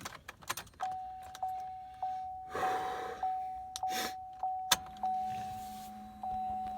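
A 2016+ GMC Sierra Denali's door-open warning chime dinging over and over, about one and a half dings a second, each fading before the next. A brief rustle comes about midway, then a sharp click.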